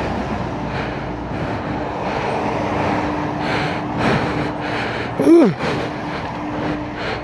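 Steady road-traffic noise with a rhythmic rustle, and about five seconds in a short, loud sound that drops sharply in pitch.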